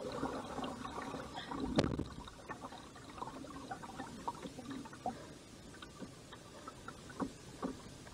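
Quiet water lapping and trickling around a kayak on the river, with a few light knocks against the boat at about two, five and seven seconds in.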